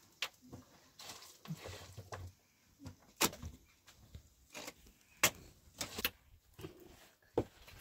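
Scattered sharp knocks and clicks, irregular and roughly a second apart, the loudest about three and five seconds in, as of objects being handled or struck.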